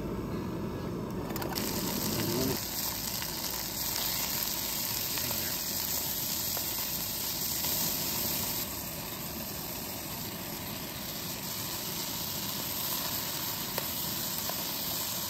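Gas canister backpacking stove burning under a pot with a steady hiss, the chopped peppers and sausage sizzling in the pot as they cook.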